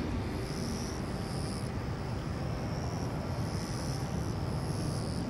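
Distant jet engine rumble of a Boeing 777-300ER's GE90 turbofans on final approach, steady and low. High insect buzzing comes and goes in short bursts over it.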